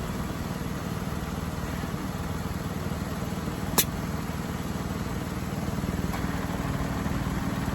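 Jeep Grand Cherokee engine idling steadily, with one sharp click about halfway through and a steady low hum joining in near the end.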